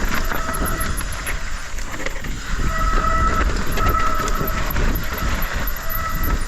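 Hot mountain-bike disc brakes with metallic pads squealing under hard braking. The high squeal comes and goes in several stretches, over the rumble of tyres and wind on a rough, loose descent. The rider takes the noise to come from the metal pads heating up.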